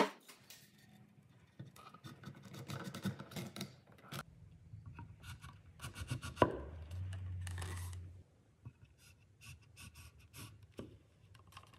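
Wood knocking and scraping against wood as a tenoned brace is handled and fitted to a mortised post: scattered light clicks and rubbing, a sharp knock about six seconds in, then about a second of steady scraping.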